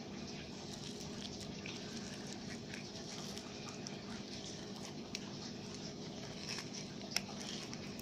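Steady rain pattering, with soft wet clicks and pops of gooey slime being squeezed and pulled in the hands; two sharper clicks stand out about five and seven seconds in.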